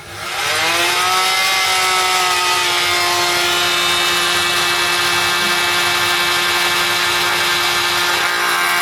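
Electric power tool motor starting up, its whine rising in pitch over about the first second, then running steadily at full speed.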